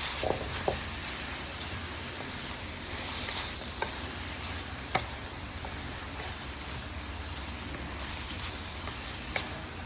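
Ground turkey and onion sizzling steadily in a frying pan as they are stirred, with the stirring utensil knocking sharply against the pan five times.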